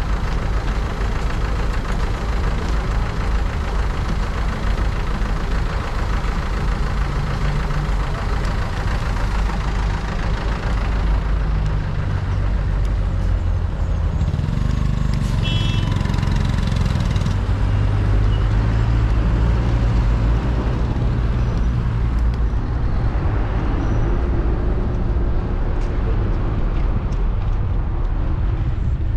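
City street traffic heard from a moving bicycle: cars and motorcycles passing with their engines running, over a steady low rumble of wind on the microphone. A vehicle engine grows louder about halfway through, with a brief high-pitched squeal.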